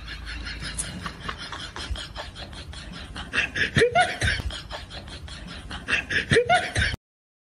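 Laughter sound effect: a rapid, repeated ha-ha-ha laugh that swells into louder bursts twice, then cuts off abruptly to silence near the end.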